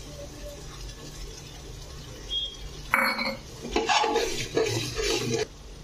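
A steel ladle stirring and scraping around an aluminium pressure cooker, working curd into a thick masala. It gives a run of scrapes and clatters that starts sharply about three seconds in and stops shortly before the end.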